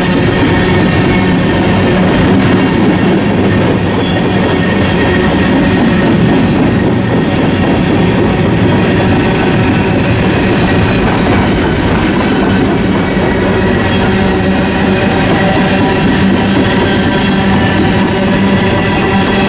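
A train passing close by: a loud, steady rumble with a set of held engine tones from its diesel locomotives.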